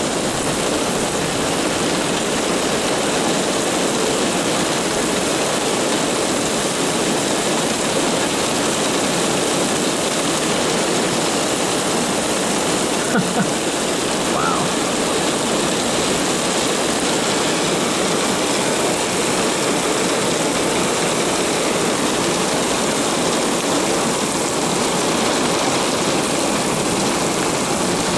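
Heavy thunderstorm rain pouring steadily onto pavement, a constant downpour.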